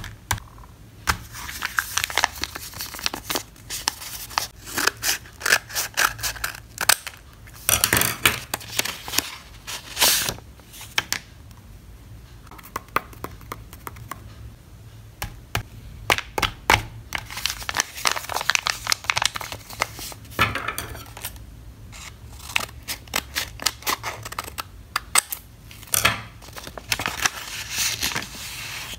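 Paper blind bags being handled and opened: crinkling and rustling of paper in clusters of sharp crackles, with quieter stretches in between.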